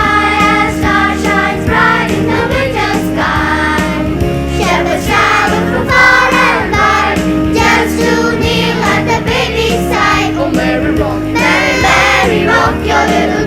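School choir singing a Christmas song in parts over instrumental accompaniment.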